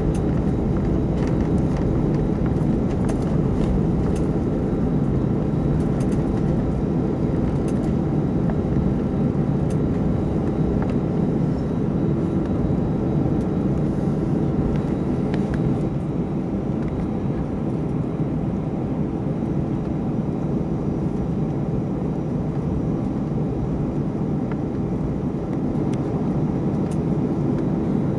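Airbus A319 cabin noise while taxiing: the jet engines running at taxi power, heard inside the cabin as a steady low hum with a few faint clicks.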